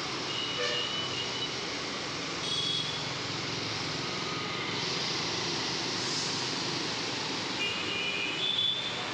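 Town street traffic: a steady hum of motorbikes and scooters, with several short horn beeps, the loudest cluster near the end.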